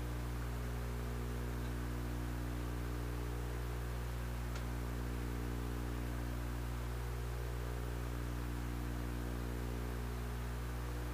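Steady electrical mains hum with a low buzz and faint hiss, unchanging throughout; no working sounds stand out.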